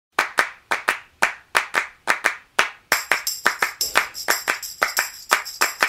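Opening of an R&B/soul instrumental: a rhythmic pattern of handclaps, mostly in quick pairs, played alone at first. About three seconds in, a high jingling percussion layer joins the claps.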